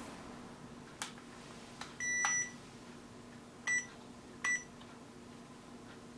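Electronic beeps from a CX-10 mini quadcopter's remote controller: one long beep about two seconds in, then two short beeps, typical of the transmitter powering on and binding to the drone. Two faint clicks come before the beeps, over a faint steady hum.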